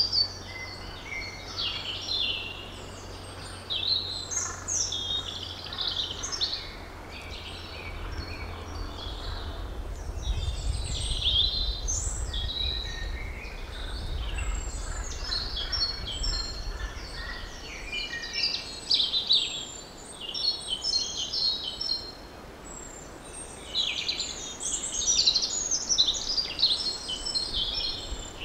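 Woodland songbirds singing, many short, varied phrases overlapping one after another, over a low rumble.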